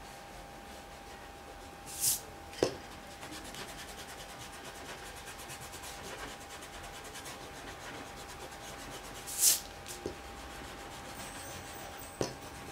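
Graphite pencil shading on drawing paper: a steady soft scratching of quick strokes, with two louder, sharper scratches about two seconds in and near the tenth second, and a couple of light clicks.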